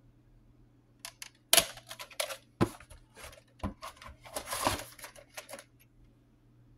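Plastic VHS cassette and its case being handled and put away: a run of clicks, knocks and plastic rattles beginning about a second in, with the loudest knock just after that, dying away near the end.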